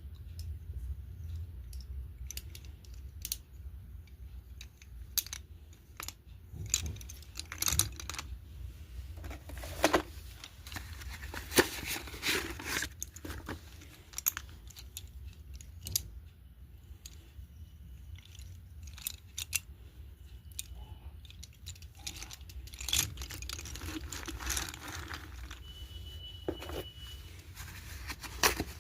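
A pack of slate pencils being unboxed: the packaging rustles and tears, and the pencils knock together in scattered clicks and clinks.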